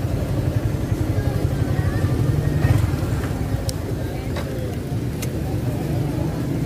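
Motorcycle engine running steadily at low speed, a continuous low pulsing hum, with faint voices in the background.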